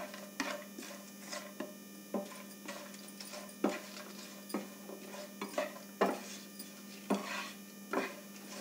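Wooden slotted spatula scraping and knocking against a nonstick frying pan, stirring cashew pieces and whole spices in ghee: irregular knocks about once a second, with a steady low hum underneath.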